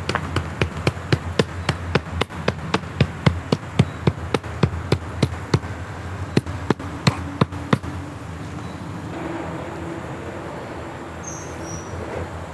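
A rapid, even series of sharp knocks, about three or four a second, stopping about eight seconds in. After that a faint steady hum remains.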